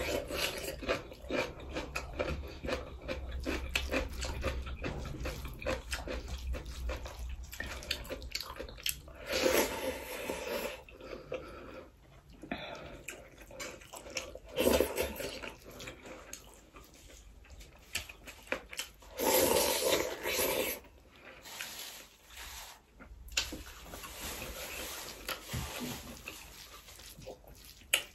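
Close-up eating sounds: wet chewing and lip-smacking of rice and curry eaten by hand, with fingers squishing and mixing rice on the plate, in many short clicks and a few longer wet stretches.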